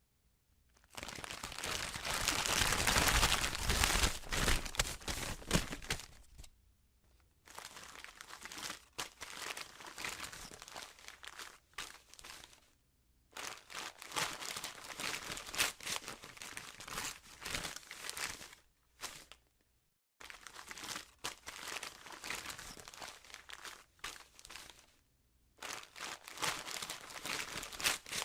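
Gift wrapping being torn and crumpled as a present is unwrapped. The crinkling and ripping come in about five bursts with short pauses between them, loudest in the first.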